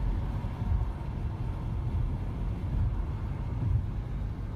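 Steady low rumble of engine and road noise inside a semi-truck's cab, picked up by the dashcam while driving at highway speed.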